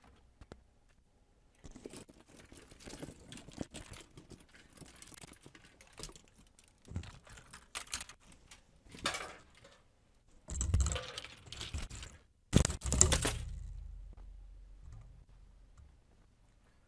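Handling noises: scattered clicks, rattles and rustles. About ten and twelve seconds in come two louder knocks, and the second leaves a low rumble that fades over a few seconds.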